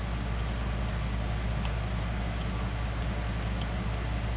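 A steady low hum, with a few faint light ticks as a ProForm 750 cfm four-barrel carburetor's throttle shafts and linkage are worked by hand. Freshly cleaned and lubricated, the shafts no longer squeak.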